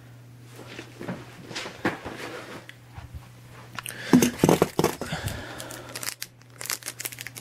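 Cardboard box and packaging being handled: irregular rustling, scraping and light knocks, busier in the second half.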